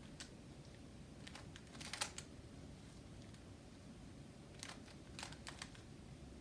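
Faint, scattered clicks of a Rubik's Cube's plastic layers being turned, coming in small clusters with pauses between them.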